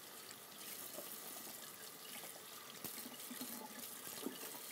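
Water running from a kitchen tap into a sink, a steady hiss, with a few light knocks.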